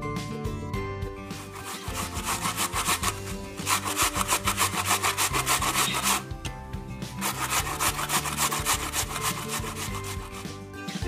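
A vegetable rasped up and down a metal box grater in two runs of quick, rapid strokes, with a short pause between them.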